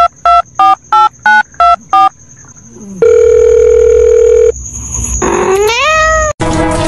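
Short electronic beeps like phone-keypad tones, about three a second and changing pitch, then one long steady beep of about a second and a half. A cat meows once with a rising pitch just before music starts near the end.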